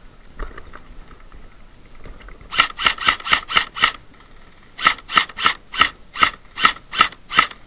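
Airsoft rifle firing single shots in quick succession: a string of six, a pause of about a second, then eight more at about three a second.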